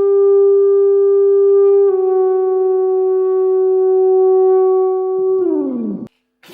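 Electric guitar made to sound like a brass horn, holding one long, smooth note. The note drops slightly in pitch about two seconds in, then slides steeply downward near the end and cuts off.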